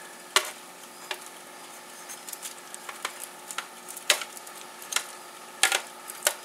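Metal tongs clicking and scraping against a foil-lined baking sheet as hot chicken wings are turned over, a sharp irregular click every second or so, over faint sizzling from the hot pan.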